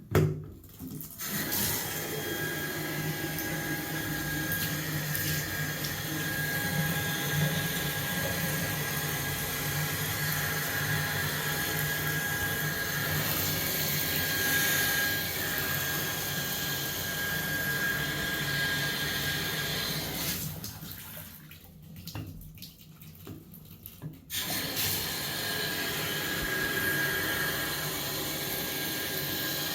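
Shower running on hot water, with a steady high-pitched tone from behind the shower handle over the rush of water; the sound drops away for a few seconds about three-quarters of the way through, then returns. The tone is the sign of a faulty shower valve cartridge.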